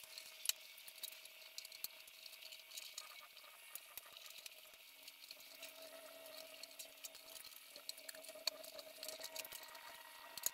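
Faint scattered clicks and light scraping of hand tools on the engine and bus body, over a faint steady hum.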